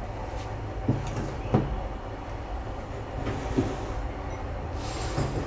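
Glass water jugs and a glass bowl being handled and set down on a kitchen counter: four short clunks, the loudest about a second and a half in, over a steady low rumble.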